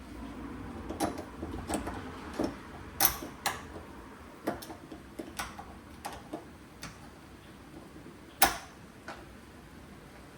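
Irregular clicks and taps of hands working on a window lock fitting, with a low rustle in the first few seconds and one sharp knock about eight and a half seconds in.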